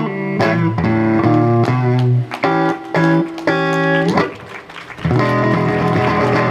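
Live blues guitar playing a closing run of single picked notes with a bend, then a final chord struck about five seconds in and left ringing as the song ends.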